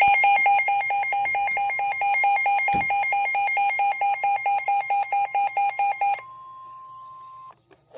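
Electronic emergency weather alert tone: rapid, evenly pulsing beeps, about four a second, for some six seconds. They are followed by a fainter steady single tone that lasts a little over a second and then cuts off.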